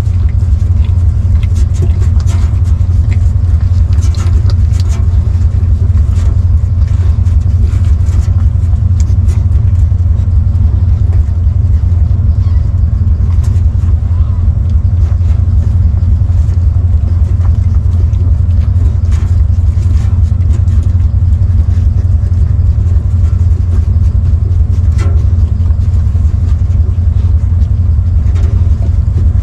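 A loud, steady low mechanical hum, with faint scattered clicks above it.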